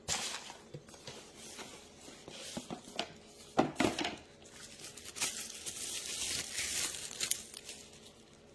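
Packaging handled by hand: irregular crinkling and rustling with small clicks, and a couple of louder knocks about three and a half seconds in.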